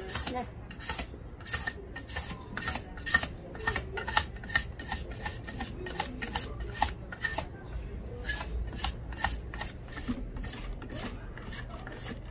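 A blade scraping the rind off a sugar cane stalk in quick repeated downward strokes, about three a second, each a short dry rasp.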